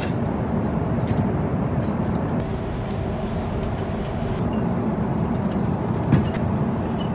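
Steady rushing drone of an airliner cabin in flight, engine and airflow noise, with a few faint clicks and a short knock about six seconds in.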